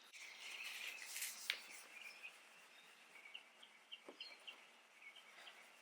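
Faint soft rubbing of a towel wiping dried wax off a plastic car headlight lens for the first two seconds or so, then faint, short bird chirps scattered through the rest.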